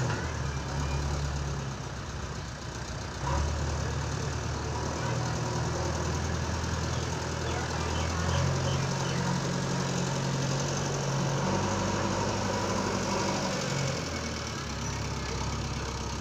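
JCB 3DX backhoe loader's diesel engine running as the machine works. Its note shifts up and down every few seconds as the load changes, with a jump in level about three seconds in.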